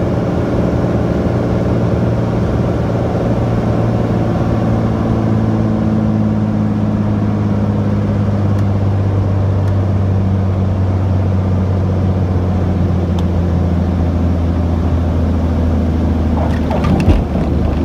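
Beechcraft Bonanza A36's six-cylinder piston engine and propeller droning steadily at reduced power, heard inside the cockpit during the landing rollout. A brief clatter near the end.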